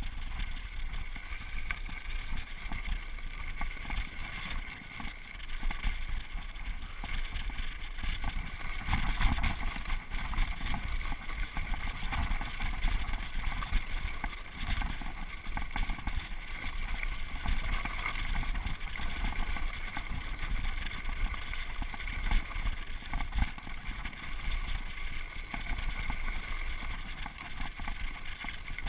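Mountain bike descending a rough dirt trail: tyres rolling over dirt and rocks and the bike rattling and clattering over bumps, with wind rushing across the microphone.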